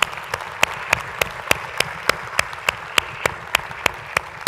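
Audience applauding, with one pair of hands clapping loudly and close in a steady rhythm of about three claps a second over the crowd's applause.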